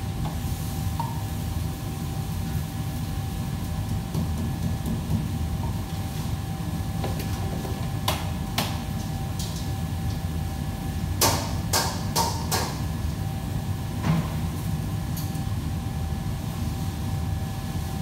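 Steady low hum of kitchen fans with a faint steady whine over it, and scattered knocks and clatters of kitchenware, most of them between about eight and fourteen seconds in.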